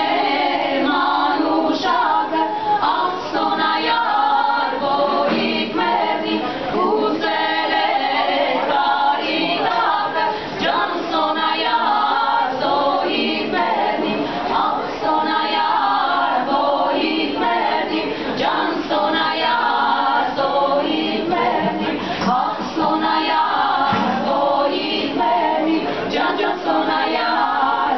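Women's vocal ensemble singing a cappella, several voices together, without a break.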